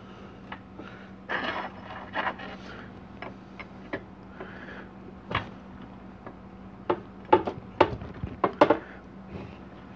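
Scattered light clicks, knocks and scrapes of parts and tools being handled on a metal-topped workbench, with a cluster of sharper clicks in the second half, over a steady low hum.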